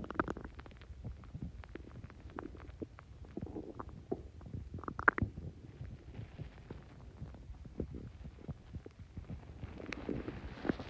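Human stomach gurgling and rumbling, bloated with fizz from Coke and Mentos: a low steady rumble under many quick irregular bubbling pops, the loudest about five seconds in.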